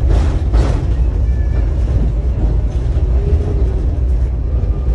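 Tram running along its tracks, heard from inside the passenger car: a steady heavy rumble of wheels and running gear, with two knocks about half a second apart near the start and a faint brief high tone a little over a second in.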